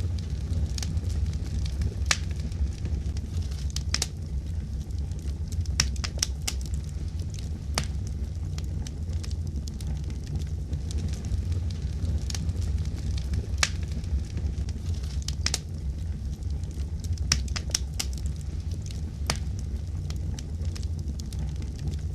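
Fireplace fire crackling: a steady low rumble with scattered, irregular sharp pops and snaps.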